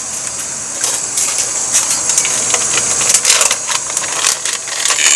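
Irregular rustling and light clicks and clatter from hands working at a stainless steel bowl and a plastic bag at the kitchen counter, over a steady high hiss.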